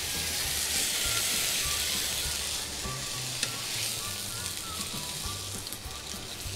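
Chicken breast sizzling in a hot frying pan while it is lifted out with tongs. The sizzle is strongest for the first few seconds and then eases, with a light tap about three and a half seconds in.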